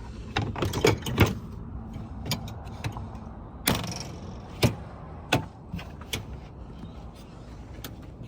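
A series of scattered sharp clicks and knocks, like things being handled and set down around a vehicle, over a low steady rumble.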